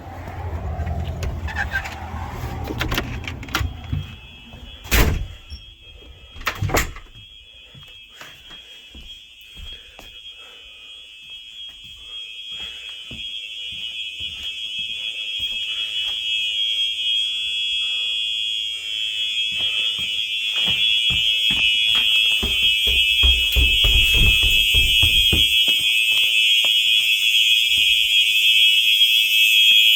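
Simplex 4903 horn/strobe's horn sounding a steady high-pitched tone. It is faint at first, comes in a few seconds in and grows steadily louder. Two loud thumps come about five and seven seconds in, with a run of short knocks after them.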